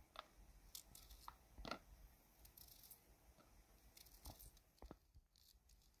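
Faint crisp snicks and crackles of a small knife cutting into a red onion held in the hand, with pieces and skin tearing off, at irregular intervals.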